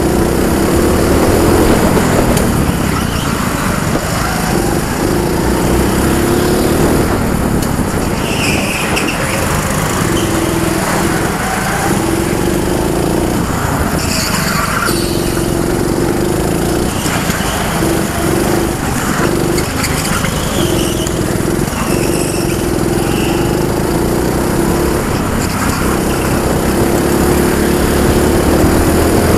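Onboard sound of a junior go-kart's small engine running hard. Its steady note drops out briefly every few seconds as the throttle is lifted for corners, over a constant low rumble of the kart on the track.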